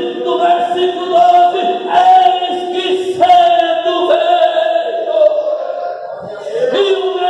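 A man's voice through a handheld microphone and loudspeakers, chanting in drawn-out, sung tones with no recognisable words, in phrases of about a second each, dipping quieter about six seconds in.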